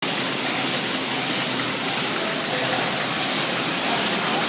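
Automatic folder-gluer machine running steadily, a continuous mechanical noise with a fast, even rhythm as it folds and glues paper French-fry boxes.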